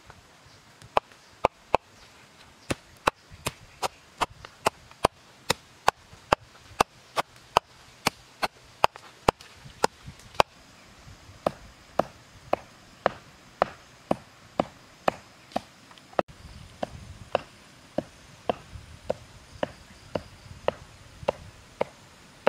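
A cleaver chopping a rat carcass through meat and bone onto a round wooden chopping block, in steady strokes about two a second. The strokes are a little softer over the last few seconds.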